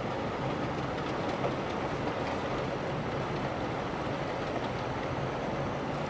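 Steady road noise inside a moving car's cabin on a snow-covered road: the tyres running on snow and the engine's low hum, with a few faint light ticks.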